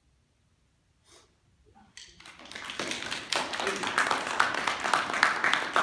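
A small group of people clapping: it starts about two seconds in after a short hush, quickly grows, and keeps going.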